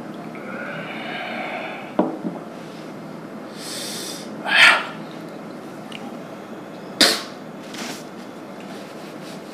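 A man's breathing as he reacts to very spicy noodles: a long voiced breath out near the start, a hiss of air drawn in, then a loud, sharp burst of breath about halfway through. Two sharp knocks come at about two and seven seconds in.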